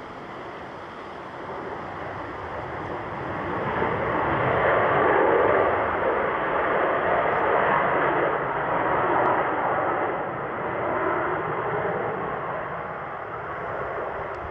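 Jet airliner's engines passing close by. The noise swells to a peak about five seconds in, holds, then slowly fades.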